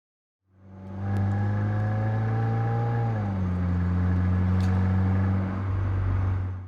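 Stock exhaust of a Subaru WRX (VB) with its turbocharged flat-four engine, idling steadily. The engine fades in shortly after the start, and its pitch dips slightly about three seconds in, then holds until it cuts off.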